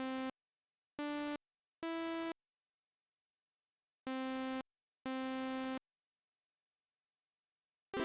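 Software synthesizer (Vinidoz Synth's VCO, played from its virtual mini keyboard) sounding single electronic notes one at a time with silent gaps between. Three rising notes come first, then the lowest note twice more, each held about half a second.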